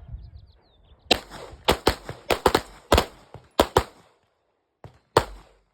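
Several pistols firing in a three-round drill: about ten sharp shots in an irregular, overlapping string over roughly three seconds, then a last shot near the end.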